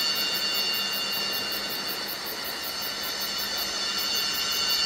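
Electronic soundtrack drone: a steady hissing synthesized texture with several sustained high tones and a fast pulsing shimmer on top, easing slightly in the middle before swelling again.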